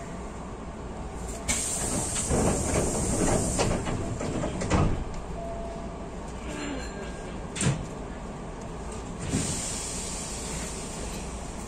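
Hankyu train car's sliding passenger doors working: a sudden hissing burst about a second and a half in, a few short thuds, and another hiss near the end, over the steady rumble of the car.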